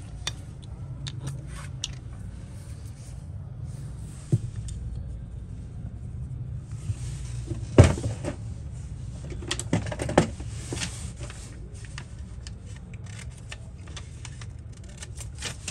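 Solder balls poured from a small plastic bottle onto a CPU reballing stencil and rolling across its metal sheet: a soft rattling hiss with many scattered small clicks and one sharper knock about eight seconds in, over a steady low hum.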